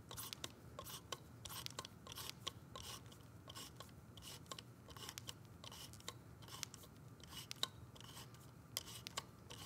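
Faint, irregular metallic clicks and scrapes of an Allen key turning the hard-stop bolt into an electric actuator's housing, running the stop bolt in until it bottoms out.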